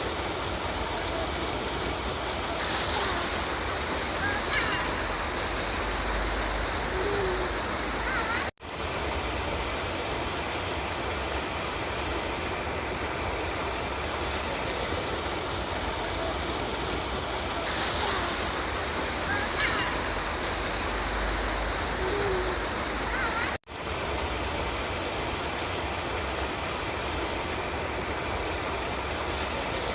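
River water flowing steadily, with a full rushing sound. It drops out for an instant twice, about eight and twenty-three seconds in.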